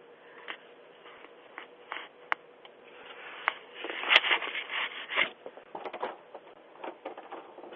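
Rubbing, scraping and sharp clicks close to a doorbell camera's microphone, with a louder run of clacks and rustling about four to five seconds in.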